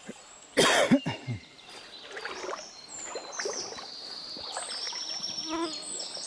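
A sudden loud burst about half a second in, with a short falling voice-like sound just after it. Then a small river trickling, with many short high chirps over it.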